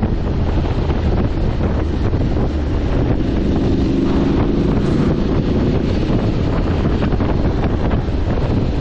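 Steady, heavy wind buffeting on the microphone of a motorcycle at road speed, with the Aprilia Tuareg 660's parallel-twin engine running underneath.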